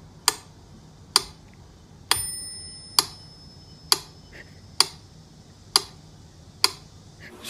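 Mechanical metronome ticking steadily, just over once a second, with its bell ringing once about two seconds in.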